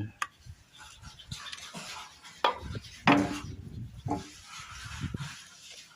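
Scattered clinks and knocks of metal parts and an oil container being handled while a car AC compressor is flushed out with oil, the loudest knock about three seconds in.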